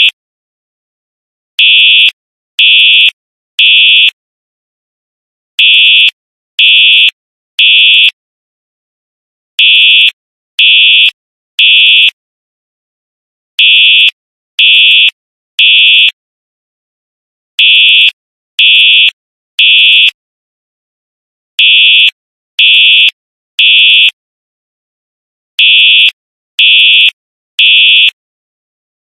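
Simplex 4903-9236 fire alarm horn strobe sounding in the code-3 temporal pattern, the standard evacuation signal. It gives three half-second blasts about a second apart, then a pause, repeating every four seconds.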